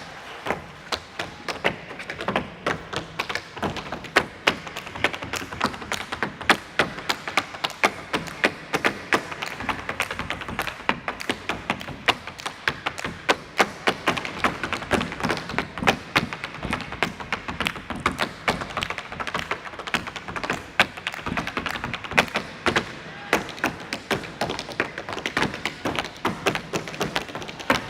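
Rapid flurry of percussive taps and thumps, several strikes a second, keeping up without a break.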